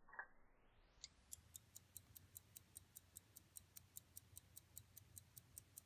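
1903 Waltham pocket watch movement ticking. A single slowed, muffled tick comes at the start, then the ticking speeds up to normal over about the first second and settles into an even, crisp rhythm of about five ticks a second.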